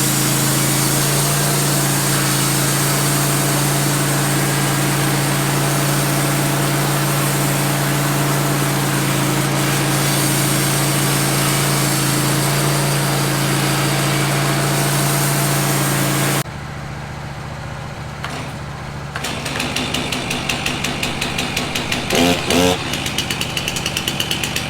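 Wood-Mizer LT15 portable band sawmill running steadily with a constant engine hum. About two-thirds of the way through, the sound cuts off abruptly to a quieter level and then turns into a rhythmic mechanical pulsing.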